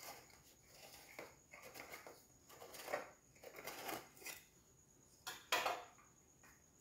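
A knife blade run around the inside of a metal cake tin to loosen a baked cake from its sides: a series of light scrapes and clicks of metal against metal, with a couple of sharper knocks about five seconds in.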